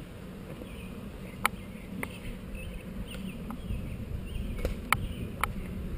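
Low wind rumble on a helmet-mounted action camera's microphone as a bicycle rolls over cracked asphalt, with a sharp click about a second and a half in and two more close together near the end.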